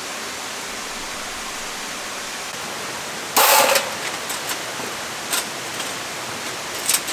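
Steady rushing of a nearby waterfall and creek. About three and a half seconds in comes a brief loud burst of noise, then a few short, lighter clicks.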